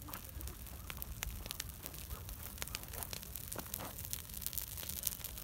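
Dry grass and brush burning in the open, crackling with irregular sharp pops over a low steady rumble.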